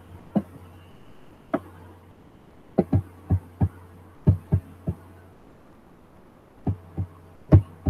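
Irregular soft knocks and clicks, about a dozen, one much louder near the end, over a low steady hum.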